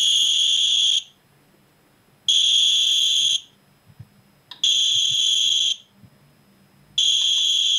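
Radex RD1706 Geiger counter sounding its alarm: a loud, high-pitched electronic beep about a second long, repeating every two seconds or so. It is warning of a high dose rate while it sits on a piece of pitchblende uranium ore.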